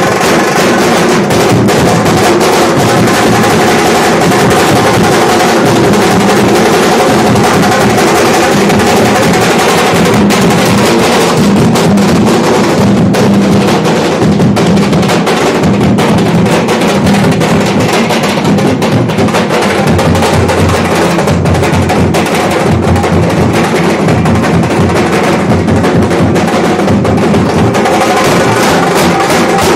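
Nashik dhol band playing loudly: several large dhols beaten in a fast, dense rhythm, with a sustained melody from a bulbul tarang (Indian banjo) over the drums.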